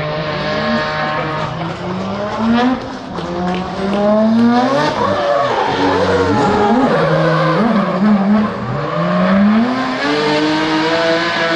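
Drift car's engine revving hard through a slide. The pitch climbs steadily, dips and jumps back up several times in the middle as the throttle is blipped, then climbs again near the end, over the screech of rear tyres spinning in the drift.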